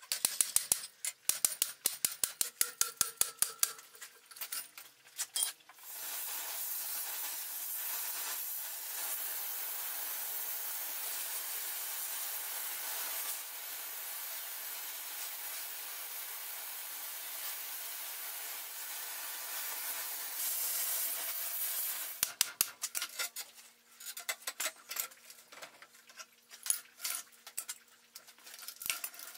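Rapid, evenly spaced hammer blows on a red-hot steel bar held in a vise for the first four seconds or so. Then a gas torch hisses steadily while heating the bar, stopping after about sixteen seconds, followed by irregular metal clanks and clicks as clamps and steel are handled.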